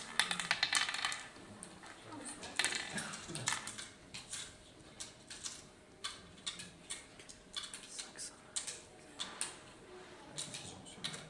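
Oware seeds clicking as they are dropped one at a time into the hollows of a wooden board: a quick run of clicks at the start and again about three seconds in, then scattered single clicks.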